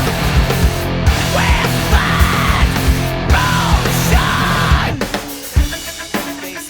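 Heavy rock music with a drum kit and distorted guitar. About five seconds in, the full band drops away to a sparser, quieter passage.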